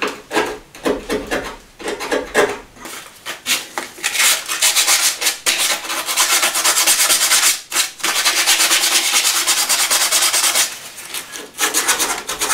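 Fresh paint being scraped and sanded off by hand to bare metal with quick back-and-forth rubbing strokes, to give the headlight's earth connection a good contact with the car body. The strokes are scattered for the first few seconds, then run fast and continuous through the middle with two brief pauses, then become scattered again near the end.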